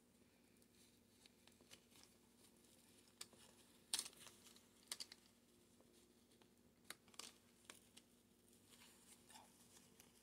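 Faint rustling and scattered small clicks and scratches as a strap on a Myomo powered arm brace is handled and fastened by hand, with a few sharper ticks about four, five and seven seconds in.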